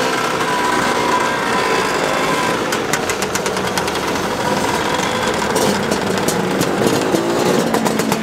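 Motor scooters' small engines running and pulling away, with a rapid, even firing rhythm that becomes more pronounced from about three seconds in.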